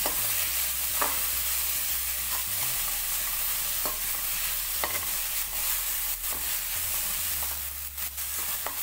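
Grated raw mango frying in ghee in a kadhai over a low flame, sizzling steadily while a spatula stirs it, with a light scrape or tap of the spatula against the pan every second or so.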